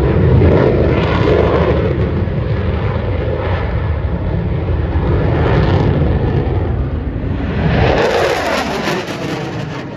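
Single-engine jet fighter flying past, its loud jet engine noise swelling as it comes overhead about eight seconds in, then sliding down in pitch and fading as it passes.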